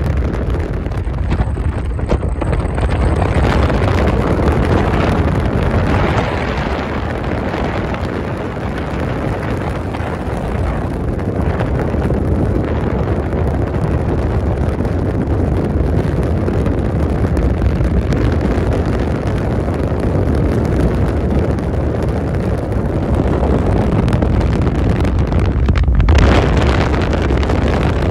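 Wind rushing and buffeting against the microphone over the low, steady rumble of a car driving at speed.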